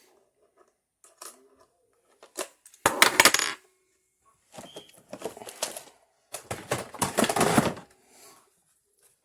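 Small hard metal objects clattering and jingling against each other in several bursts, as when rummaging through a cup of loose parts. The loudest burst comes about three seconds in and the longest about two-thirds of the way through.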